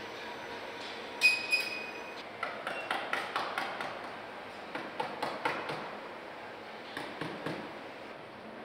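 Metalwork on a car assembly line: a sharp metallic clank with a brief ringing tone about a second in, then irregular runs of knocks and clicks from parts and hand tools, over steady factory background noise.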